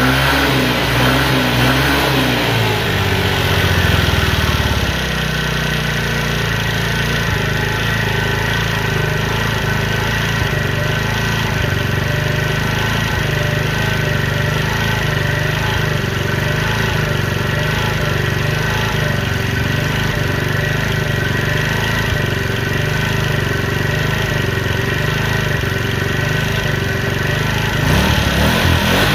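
Engine of a 50cc Chinese scooter running: it settles from a higher speed to a steady idle in the first few seconds and speeds up again near the end.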